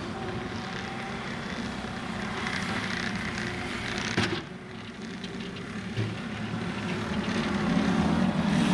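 New Holland C232 compact track loader's diesel engine running as the machine works, with a sharp knock about four seconds in; the engine grows louder near the end.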